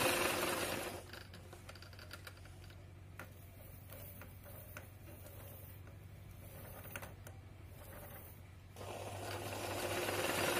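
Sewing machine doing hoop embroidery: it runs at speed, slows almost to a stop about a second in and ticks lightly with scattered clicks for several seconds, then speeds back up near the end.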